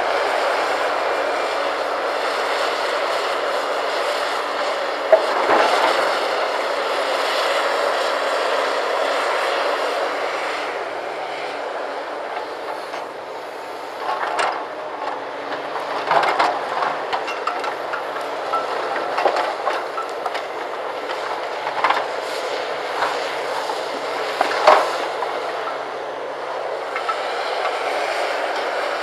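Komatsu PC340LC hydraulic excavator's diesel engine working steadily under load while it digs broken concrete, with sharp clanks and knocks of concrete rubble against the bucket at intervals, the loudest about five seconds in and near the end.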